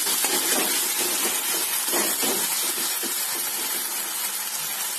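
Tomato-and-spice masala sizzling steadily in hot oil in a metal kadhai while it is fried down, with a metal spatula stirring and scraping the pan now and then during the first three seconds.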